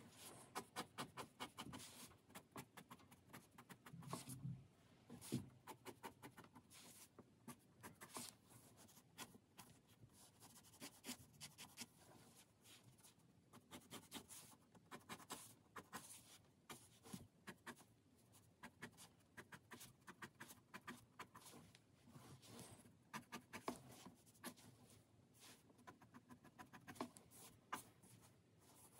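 Fine-tip marker pen scratching on paper in quick runs of short hatching strokes, each stroke a brief faint scratch, with short pauses between the runs.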